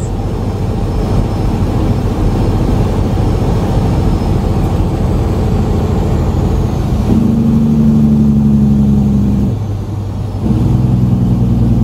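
Semi truck's diesel engine running under load on the road, heard from inside the cab, with a steady engine note that strengthens about seven seconds in, drops away briefly near ten seconds and then comes back.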